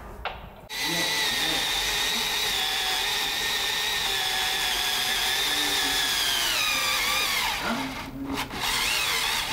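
Cordless drill boring into wood, running steadily at high speed, its whine dropping in pitch as it slows and stops about seven and a half seconds in, then running again briefly near the end.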